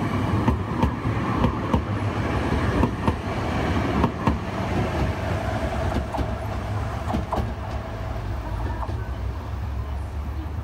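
Alstom Citadis Dualis tram-train running past and pulling away: a low rumble with sharp wheel clicks over the rail joints in the first few seconds, then a steady whine as it draws off and the sound slowly fades.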